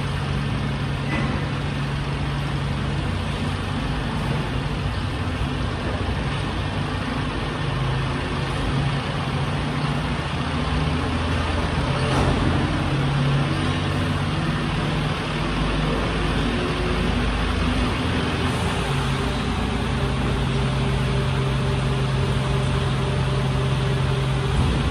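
Mercedes-Benz garbage truck's diesel engine running steadily, a continuous low hum that grows a little stronger in the second half.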